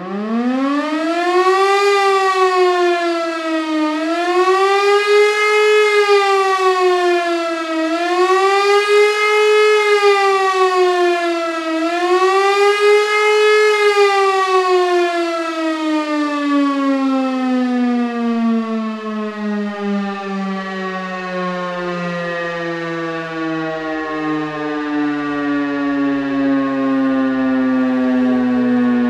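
Elektror L1 mechanical motor siren spinning up and sounding the wavering 'warning of the population' signal, a howl that rises and falls about every four seconds. After four peaks it breaks off and winds down in one long falling howl. The uploader takes this for the old siren giving out, lacking stamina.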